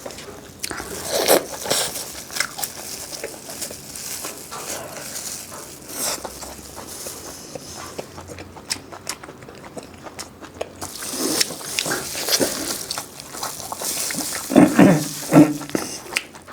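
Close-miked eating sounds: irregular biting, smacking and chewing of food, with a louder cluster of wet chews near the end.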